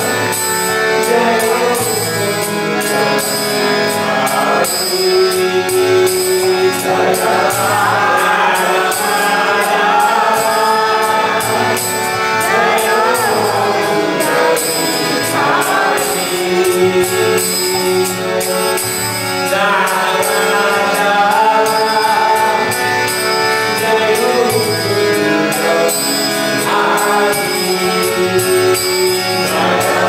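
Harmonium playing a held kirtan melody, with small hand cymbals striking a steady beat and a voice singing long, sliding melodic phrases over it.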